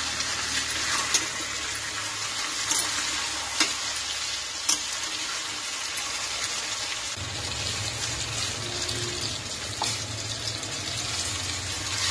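Chicken pieces sizzling steadily as they fry in thick masala in a pan, with a few sharp clicks scattered through the first half. Hot water starts pouring into the pan right at the end.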